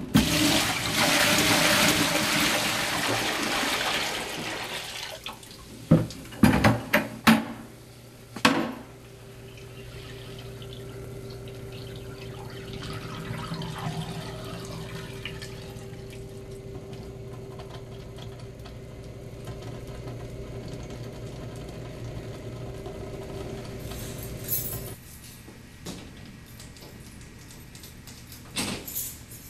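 Soapy water poured from a mop bucket into a mop sink's floor drain, a loud rush for about four seconds, followed by a few sharp knocks. The water then drains away with a quieter steady sound and a low hum until it drops off near the end, where two more knocks follow.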